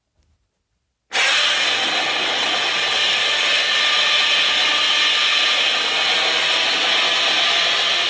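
Godzilla's roar from the 2014 film: a loud, unbroken roar that starts abruptly about a second in after near silence, noisy rather than clearly pitched, with most of its weight high up.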